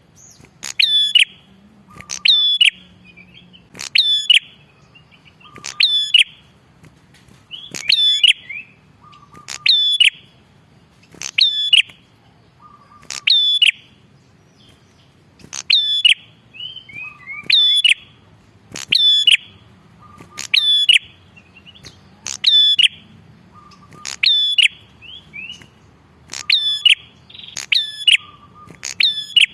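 Prenjak kepala merah songbird calling loudly and persistently, one sharp sweeping call about every one and a half to two seconds, each with a quieter lower note beside it.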